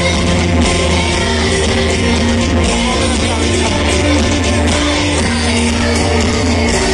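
Loud song with singing over music, with a strong, steady bass underneath.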